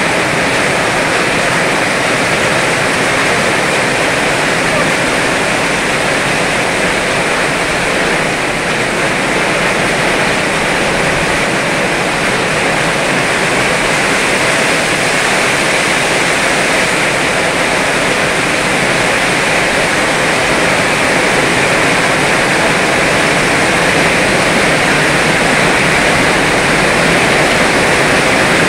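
Heavy rain pouring down in a steady, loud rush, with water streaming off the edge of the roof; it swells a little in the last few seconds.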